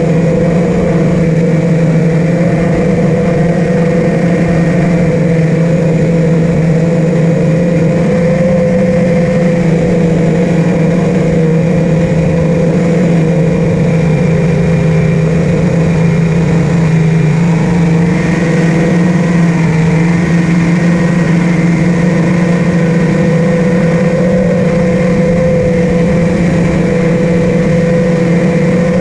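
A 5-inch FPV quadcopter's four brushless motors (Amax 2306 2300KV) and propellers whining steadily in cruise flight, the pitch wavering slightly as the throttle shifts.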